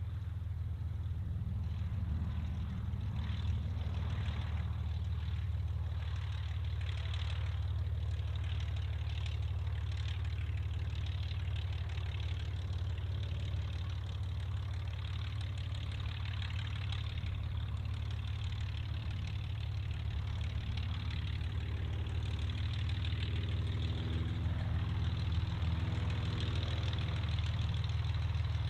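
Light propeller aircraft's piston engine running at low power, a steady low rumble, its engine note growing louder over the last several seconds.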